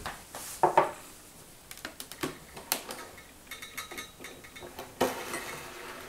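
Kitchenware being handled: a string of metal and ceramic clinks and knocks as a steel milk pitcher and cups are moved, with a loud pair about a second in and another knock near the end.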